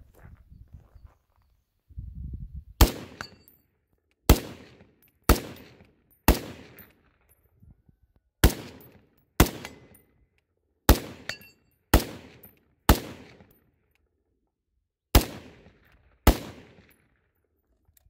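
DSA Para FAL 16-inch Congo Edition rifle in 7.62×51mm NATO firing semi-automatically: eleven sharp shots at about one a second with a few longer gaps, each trailing off in an echo. The rifle cycles every round without a stoppage, its gas regulator dialed down to setting 2.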